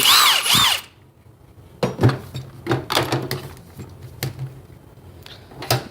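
A brief loud whir that rises and falls twice, then scattered clicks and knocks of tools being handled in a metal tool chest drawer.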